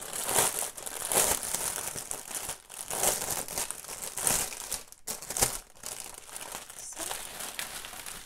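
Clear plastic bag full of small packets of diamond-painting drills crinkling as it is opened by hand and emptied, the packets rustling against each other. The rustling comes in a series of loud bursts that ease off after about five seconds.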